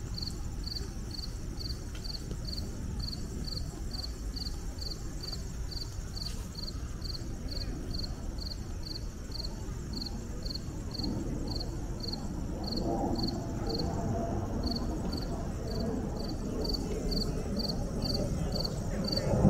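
A cricket chirping in short, evenly spaced high pulses at one pitch, about two to three a second, with a brief pause partway through. It sits over a low background rumble that grows a little louder in the second half.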